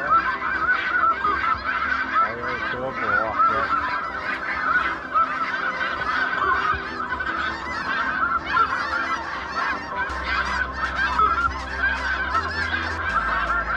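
A large flock of snow geese calling overhead: a dense, continuous chorus of many overlapping calls with no break.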